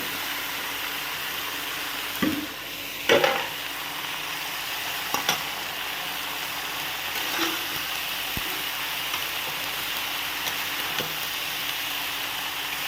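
Cabbage going into a hot karahi of spiced masala and sizzling steadily, with a few knocks and clatters of the spatula against the pan as it is stirred; the loudest knock comes about three seconds in.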